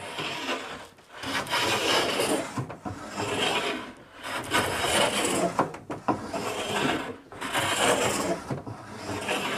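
Hand jointer plane cutting along the edges of two boards clamped together: about six long strokes, each about a second of the blade shaving wood, with short pauses between. The boards are being edge-jointed straight for a glue joint, taking long full-length shavings.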